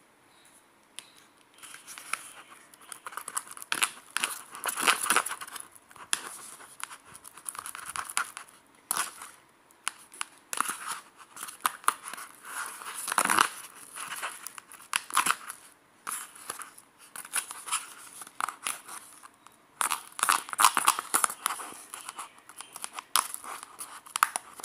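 Homemade PVA-glue slime being mixed and worked by hand, giving irregular crackling, sticky snapping sounds as it pulls apart, starting about a second and a half in.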